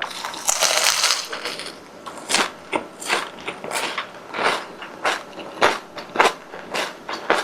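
Close-up crunching of a crispy deep-fried croquette being eaten: a dense crackle in the first second or two, then crunchy chewing strokes, about one or two a second.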